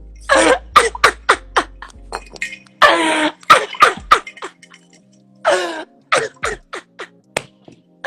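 A man coughing in a string of harsh bursts, with faint background music.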